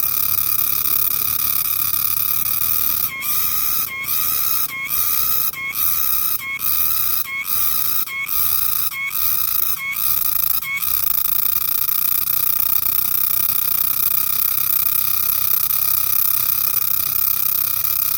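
Green cicada calling: a loud, steady, high-pitched buzz. For a stretch in the middle it breaks off briefly about ten times, roughly once a second, then runs on unbroken.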